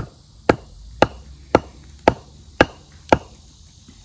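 Split firewood log used as a mallet, knocking on the top of a steel grill stake to drive it into hard ground: sharp wooden knocks, about two a second, seven strikes that stop a little after three seconds in. Crickets chirr faintly behind.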